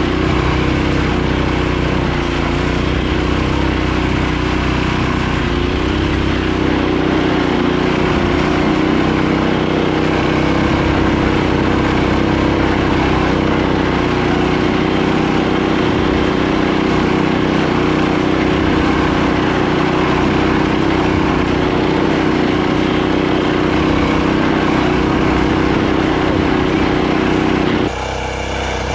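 Rokon Trail-Breaker 2x2's 7 hp Kohler single-cylinder engine running steadily under load as the bike climbs a steep hill in snow, heard close up from the bike. Near the end the sound drops a little in level.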